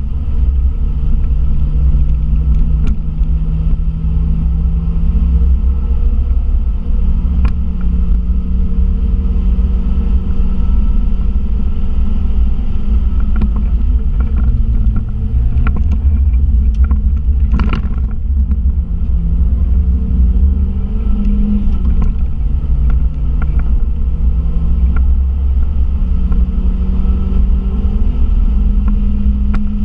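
VW Polo Mk2 (86c) four-cylinder engine driven hard, heard from inside the cabin: the engine note climbs through the revs and drops back at each gear change or braking, over a heavy low rumble of road and wind noise. One short sharp knock comes a little past the middle.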